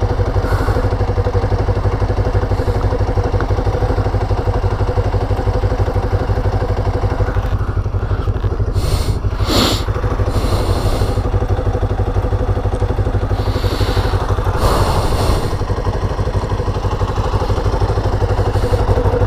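Kawasaki Ninja 500's parallel-twin engine idling steadily in neutral. Two short knocks or scrapes of handling noise come about halfway through and again a few seconds later.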